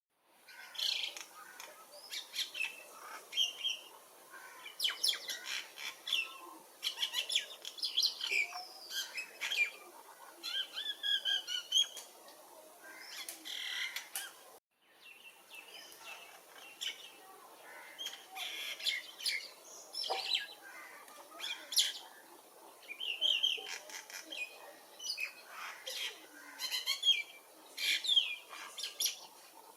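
A chorus of several songbirds chirping and singing at once: many overlapping short chirps and trills, some of them bright and high. The sound drops out for a moment about halfway through, then carries on.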